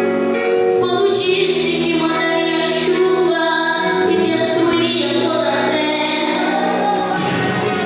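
A young girl singing a Portuguese Christian praise song, with instrumental accompaniment.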